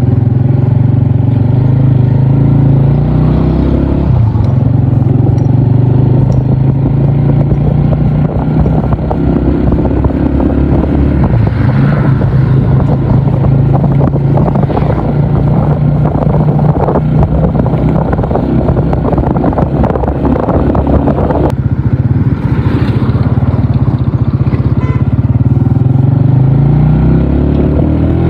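Brand-new Honda CG125's single-cylinder engine running on the road during its first ride, its note shifting several times as speed and gear change.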